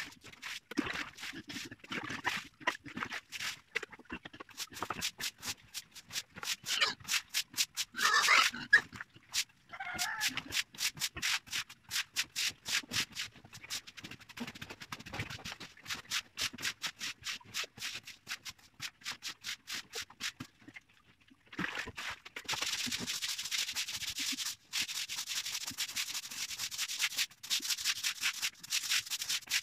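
Pig-pen floor being scrubbed or swept clean in quick, repeated scraping strokes, a few per second. There is a short animal squeal about eight seconds in, and the strokes turn faster and hissier for the last several seconds.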